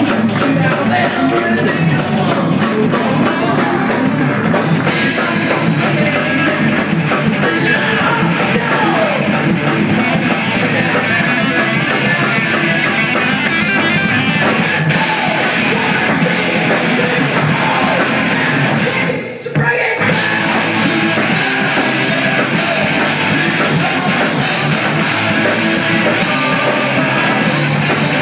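Live rock band playing loud, with electric guitars, bass, drum kit and a male lead singer. The band cuts out for a brief break about two-thirds of the way through, then comes straight back in.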